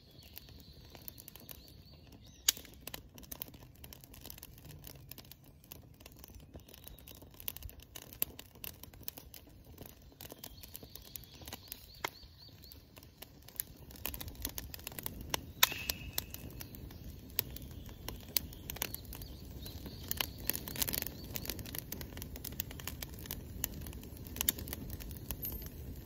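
Dry conifer-twig kindling catching fire: a campfire crackling with many sharp pops and snaps, growing into a steady low rush of flame about halfway through as it blazes up.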